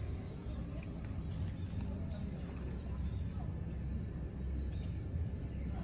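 Outdoor background: a steady low rumble with a few faint, scattered bird chirps.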